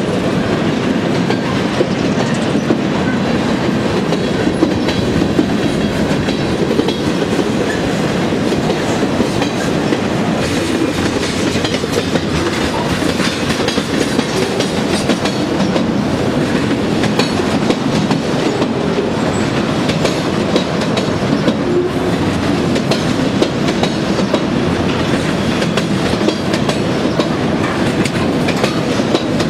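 Freight train of covered hopper cars rolling past: a steady rumble of wheels on rail, with wheel clicks over the rail joints.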